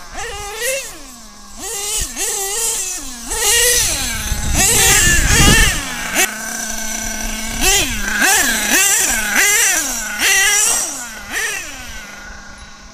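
Modified Picco .28 nitro engine in an HPI Savage X RC monster truck, revved up and down in short bursts. It is loudest as the truck passes close about five seconds in, drops to a steady idle for a second or so just after, then revs in quick bursts again.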